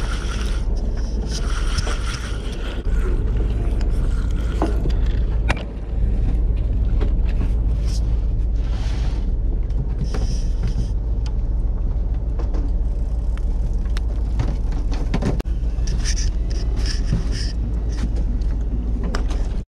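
Charter boat's engine running with a steady low rumble, with scattered light clicks and knocks on top.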